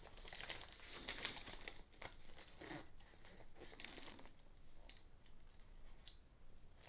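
Faint crinkling and light clicks of plastic packaging and parts being handled, scattered throughout.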